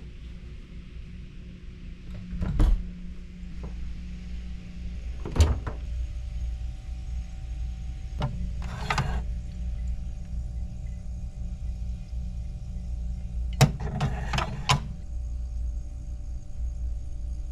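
A hotel-room drinks refrigerator being opened and a plastic water bottle lifted out of its slotted rack. It gives a few sharp clicks and knocks, with a quick cluster of clicks near the end, over a steady low hum.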